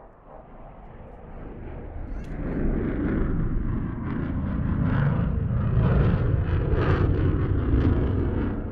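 Military jet passing at a distance of about 2 km, its engine rumble building over the first couple of seconds, then staying loud with a ragged crackle in its upper part before easing off near the end.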